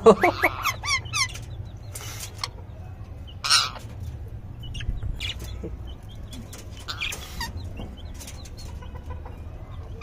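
Caged rose-ringed parakeets and budgerigars calling during a squabble: a quick run of short chirps at the start, then loud harsh squawks about two, three and a half and seven seconds in, with scattered small chirps between.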